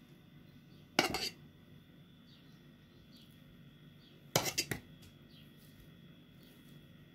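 Boiled potato chunks being put into a plastic blender bowl: two short bursts of knocking and clatter against the plastic, about a second in and again about four and a half seconds in.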